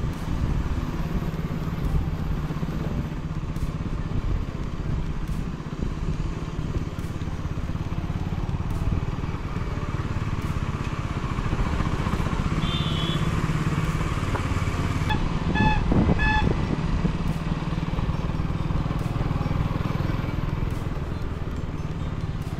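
Motorcycle engine running steadily under way, with wind and road noise. A horn beeps twice, briefly, about two-thirds of the way through.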